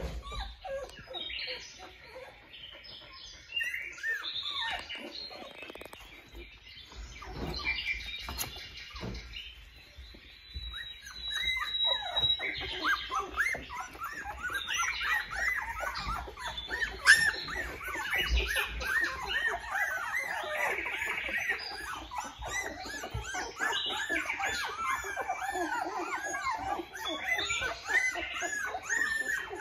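A litter of young Australian Shepherd puppies squeaking and whimpering, many short high-pitched cries overlapping each other. The cries are sparse at first and grow into a busy, continuous chorus about halfway in.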